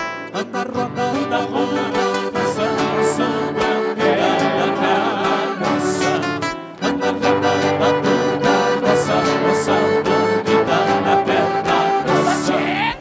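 Live gaúcho folk music for a traditional dance: accordion and guitar with singing, with a short dip about two-thirds of the way through.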